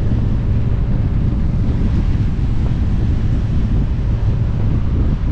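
Heavy wind rumbling steadily on the microphone at highway speed, mixed with the running of motorcycle engines.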